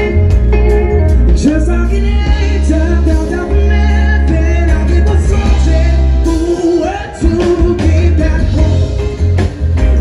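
Live band playing a song: a male lead singer with acoustic guitar, backed by drum kit, electric guitar, bass and keyboards. The low end drops out for a moment about seven seconds in.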